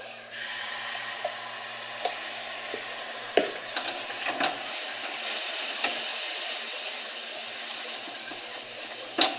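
Oligosaccharide syrup and sugar sizzling in a hot frying pan while being stirred, the steady hiss starting suddenly just after the start, with a few clicks of the stirring utensil against the pan.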